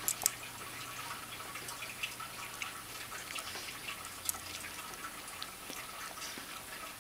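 A German Shepherd licking and mouthing a Chihuahua puppy: faint wet licking and smacking with scattered small clicks.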